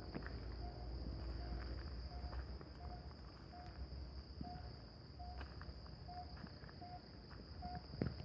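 A short hooting note ('nguk-nguk') from an unseen night animal, repeating evenly about one and a half times a second over the steady chirring of crickets. There is one sharp knock near the end.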